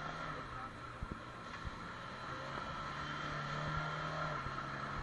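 An off-road 4x4's engine running under load as the vehicle works up a muddy rutted track. The engine note steps up about halfway through and eases back down near the end, with a few short knocks in between.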